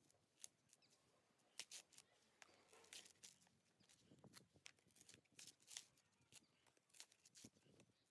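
Dry coconut husk being levered off on an upright iron spike: faint, irregular cracking and snapping of fibre, a few sharp cracks a second.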